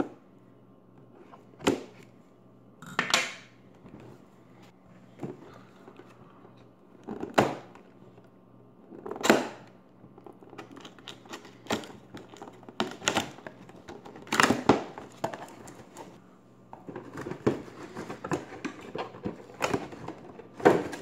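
Cardboard toy box with a clear plastic window being handled and opened by hand: scattered knocks, scrapes and crinkles of the packaging at irregular intervals, with quiet gaps between.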